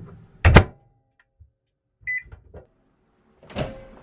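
Microwave oven in use: a loud clunk, a single short beep about two seconds in, then another clunk near the end.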